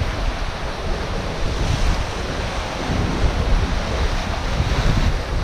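Strong wind buffeting the microphone in gusts, over surf washing against the foot of a rock sea cliff.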